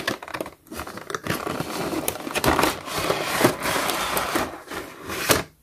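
Clear plastic blister tray being slid out of a cardboard toy box, crinkling and scraping, with small clicks and knocks.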